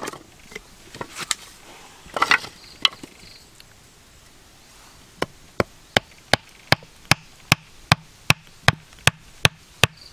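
Freshly cut wooden sticks clattering together, then a steady run of sharp wooden knocks, about two to three a second, as a wooden stake is driven into the earth.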